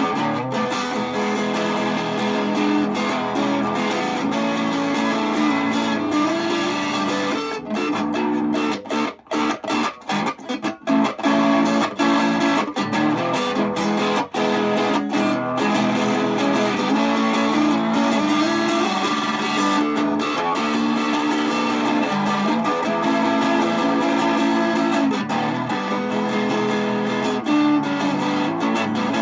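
Guitar-led music playing continuously, with a few short breaks where the sound cuts out around ten seconds in.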